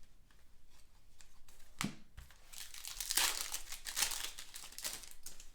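Crinkling of a foil trading-card pack wrapper being handled, with a sharp tick a little under two seconds in and a dense crackle over the second half.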